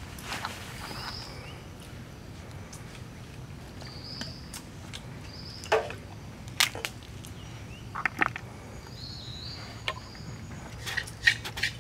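Scattered sharp clicks and clacks of crab shells and legs knocking against each other and the wooden board as they are handled, with a quick cluster near the end. Underneath, a steady outdoor forest background with short high chirps.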